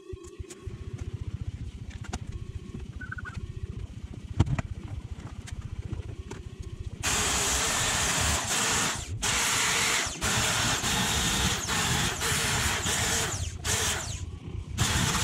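Handheld power tool working rust and old metal off the steel scuttle lip of a classic Mini. It starts about seven seconds in and runs in bursts with several short stops, after a quieter low rumble.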